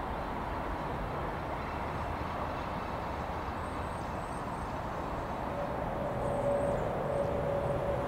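Freight train's covered hopper wagons rolling away along the track, a steady rumble of wheels on rail. A steady high squeal joins about five and a half seconds in.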